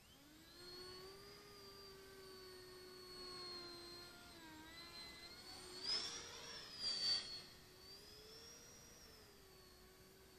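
The FMS 70 mm 12-blade electric ducted fan of a Starmax F-5 RC jet whining in flight, its pitch drifting up and down with the throttle. The whine swells louder twice a little past the middle.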